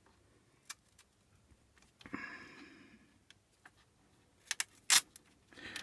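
Scattered small clicks and taps of fingers and a small screwdriver working at the plastic edge of a Getac S410 G2 laptop's case. A soft rustle comes about two seconds in, and a few sharp, louder clicks come just before five seconds in.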